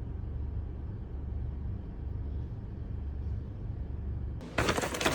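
Steady low rumble of a car running, heard from inside the cabin. About four and a half seconds in, a sudden loud rustling and scraping starts.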